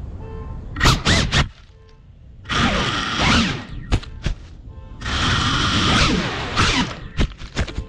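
FPV drone's motors and propellers revving hard in bursts, their whine gliding up and down in pitch, with sharp whacks as the props hit leaves and grass while it climbs out of the undergrowth. It gives two longer bursts of high throttle and then a run of quick throttle blips near the end.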